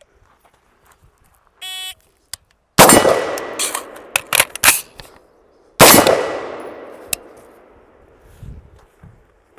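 A shot-timer beep, then a single shot from an AD-15 AR pistol in 5.56 with a long fading echo. A few sharp clacks of a magazine change follow, and then a second shot.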